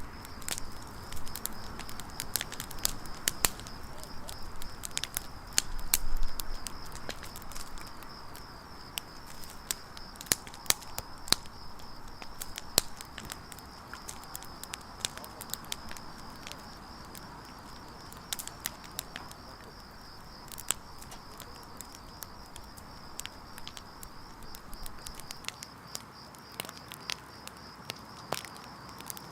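Wood campfire burning, with frequent sharp crackles and pops over a soft hiss of flame, and a steady high-pitched whir behind it; a louder low rustle about six seconds in.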